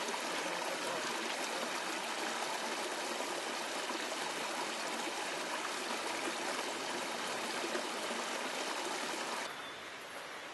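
Water running and splashing down a narrow stepped stone channel in a steady rush. It cuts off abruptly near the end, giving way to a quieter, duller hush.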